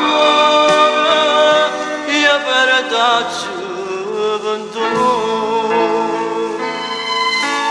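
Music from a Neapolitan neomelodic pop song in an instrumental passage: held chords with a melody line over them and no lead vocal.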